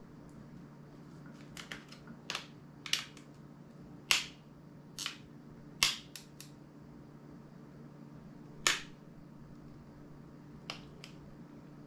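Plastic clips of a smartphone's casing snapping and clicking as the case is pried apart by hand: about a dozen sharp, irregular clicks, the loudest about four, six and nine seconds in.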